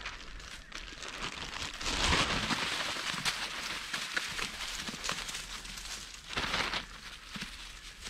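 Dry rustling and crinkling, with louder stretches about two seconds in and again around six and a half seconds in.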